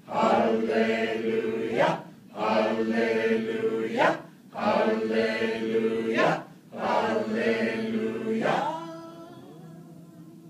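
A small group chanting 'hallelujah' together, unaccompanied, in a slow repeated melody. There are four phrases of about two seconds each with short breaths between them, and the last note is held and fades away near the end.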